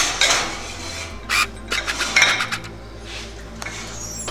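A ceramic baking dish scraping and clattering as it slides onto a metal oven rack, in a few short rasping bursts.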